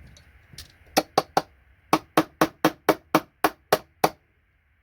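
A run of about a dozen sharp knocks, three quick ones about a second in, then nine more at about four a second, each with a brief ringing tone: a hand tool working a small connector off a circuit board.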